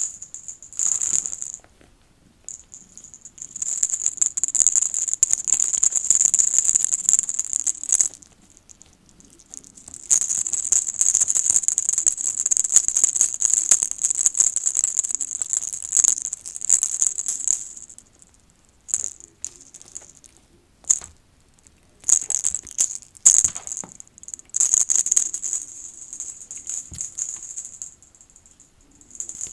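Dry, shaken rattling in bursts of different lengths, from brief shakes to several seconds at a time, with short pauses between.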